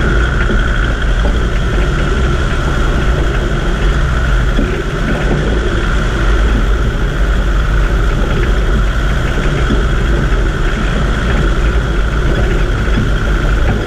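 Land Rover Discovery 2 driving slowly over a rocky dirt track: a steady, deep engine drone with a constant whine above it and no change in speed.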